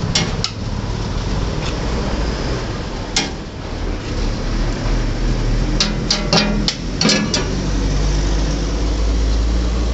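Steady low rumble of street noise, with scattered sharp clicks and knocks and a quick cluster of them about six to seven seconds in.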